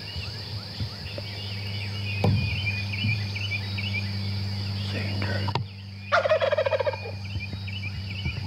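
A wild Rio Grande turkey gobbler gobbles once, a loud, rapid rattling call about six seconds in. Small birds chirp throughout.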